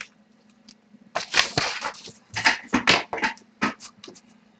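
A cardboard box of trading cards being handled and set down: a quick run of short rustles and knocks. A faint steady low hum sits underneath.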